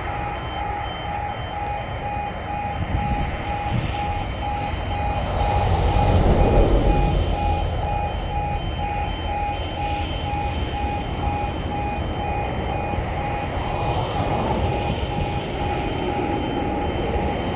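Level crossing audible warning alarm beeping in a steady, even rhythm while the miniature stop light shows red, the sign that a train is approaching. Wind rumbles on the microphone, gusting about six seconds in and again near the end.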